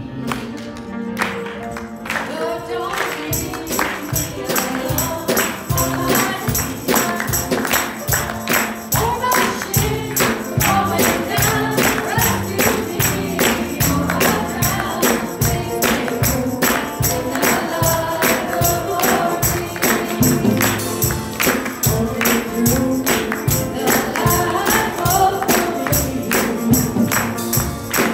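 A woman singing a gospel song into a microphone over instrumental accompaniment, with a tambourine keeping a steady beat that starts about two seconds in.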